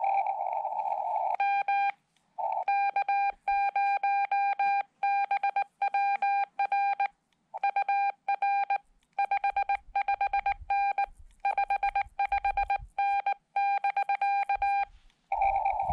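Morse code (CW) from a Xiegu X5105 transceiver: a steady mid-pitched beep keyed into dots and dashes for about thirteen seconds. Between the elements the receiver goes silent, as it does when the radio is sending. Narrow-filtered receiver hiss comes in just before and again just after.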